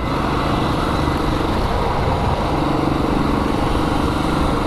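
Royal Enfield Classic 350 BS6's single-cylinder engine running steadily while the motorcycle is ridden, mixed with a continuous rush of wind and road noise.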